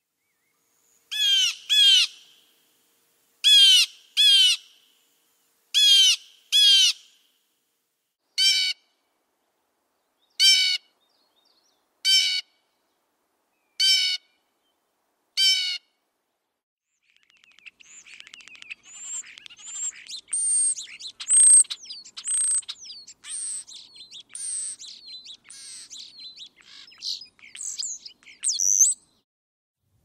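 A blue jay gives eleven harsh alarm calls, first three pairs and then single calls about every two seconds; this is the call it uses to warn other birds of hawks nearby. After a short gap past the halfway point, a European starling sings a busy jumble of high whistles, slurred slides and clicks.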